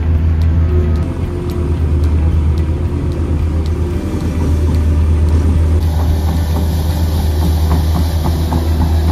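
Narrowboat's diesel engine running steadily at cruising speed, a loud, even low hum heard from the stern. A steady hiss joins it about six seconds in.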